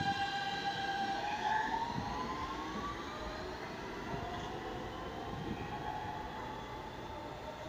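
New York City Subway R160 train pulling out: its propulsion motors whine in several stacked tones that hold steady, then glide upward from about a second in as it picks up speed. Wheel and rail rumble fades as it moves away.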